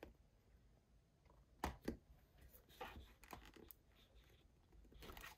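Faint handling of a plastic acrylic paint bottle over a paper palette: two light clicks a little under two seconds in, then a few soft scrapes and rustles.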